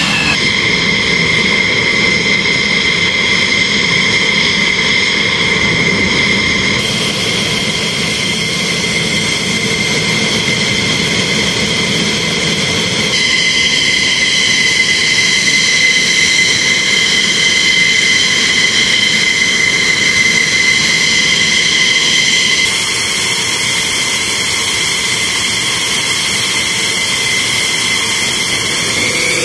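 F-15 fighter jets' turbofan engines idling on the ground: a steady high whine over a loud rushing roar. The tone shifts abruptly a few times as different jets are heard.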